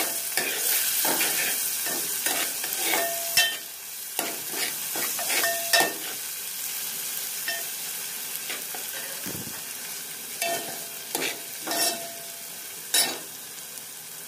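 Chopped onion and garlic-ginger paste sizzling in hot oil while being sautéed, with a metal ladle stirring and scraping the metal pot. Several sharp clinks of the ladle against the pot ring briefly, and the sizzle eases slightly towards the end.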